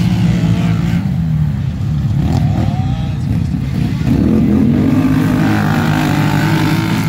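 Racing quad (ATV) engines running hard as two quads pass on a dirt track, one engine revving up with a rising pitch about four seconds in, when the sound gets louder.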